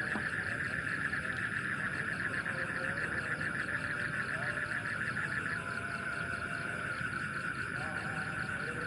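Night chorus of frogs and insects: a steady, rapidly pulsing high trill with fainter wavering calls beneath, the pulsing easing a little about halfway through.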